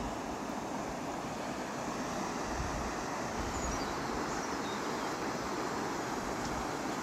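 Steady rush of river water pouring over a weir, with wind rumbling on the microphone and a few faint high chirps about halfway through.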